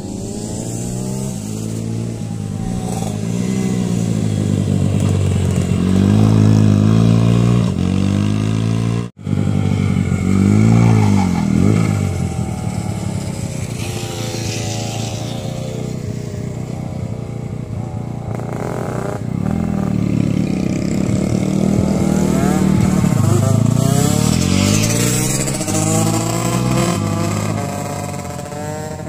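Bucci BR10GP mini racing motorcycle's engine revving up and dropping back again and again as it is ridden hard through the corner. The sound cuts out for an instant about nine seconds in.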